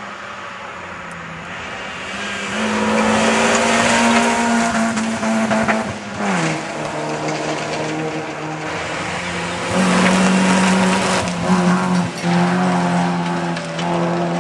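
MG ZR rally car engines at speed on a special stage. The engine note climbs and then drops sharply about six seconds in, and comes back loud again from about ten seconds in.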